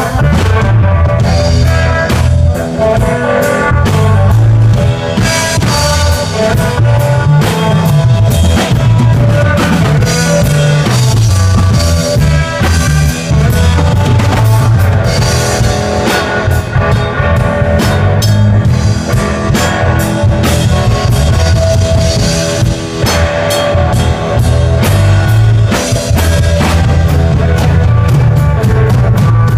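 Live blues-rock trio of electric guitar, bass guitar and drums playing an instrumental passage, with a driving drum-kit beat, heavy bass and guitar lines over it.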